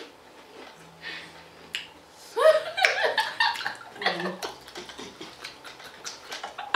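Crunching of barbecue potato chips being bitten and chewed, a scatter of short sharp crackles. About two and a half seconds in, laughter and voices take over for a couple of seconds.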